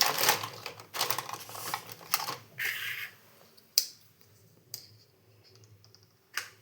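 Small toy kitchen pieces being handled and set in place: a quick run of light clicks and clatter for about three seconds, then a few single clicks.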